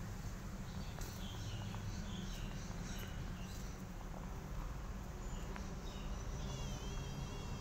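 Outdoor garden ambience: scattered short high chirps and, near the end, a brief wavering trill, over a steady low rumble.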